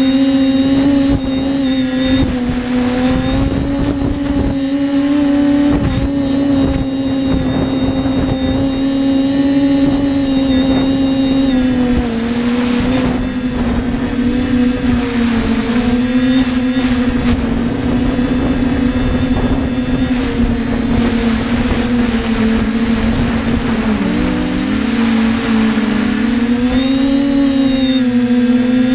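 TBS Discovery Pro quadcopter's electric motors and propellers humming steadily as heard from the drone itself, with wind rumble on the microphone. Near the end the pitch dips and swings back up as the throttle changes.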